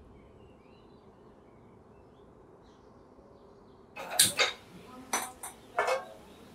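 Gas stove being turned on and lit: a quick run of sharp metallic clicks, about six in under three seconds, starting about four seconds in. Before that, only a faint background.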